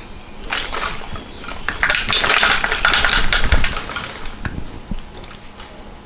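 Metal tools and parts clinking and rattling as they are handled and set down on a workbench, a dense clatter of small metallic knocks from about half a second in that fades about four and a half seconds in.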